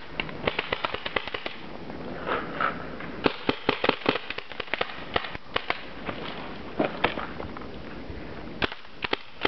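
Paintball markers firing: many sharp pops in irregular volleys, some in quick runs of several shots.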